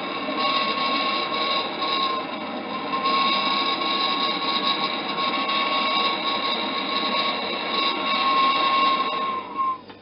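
Hand-held gas torch burning steadily with a hiss and a high whistle, its flame thawing the ice crust on a refrigerator compressor's suction line; it cuts off suddenly near the end.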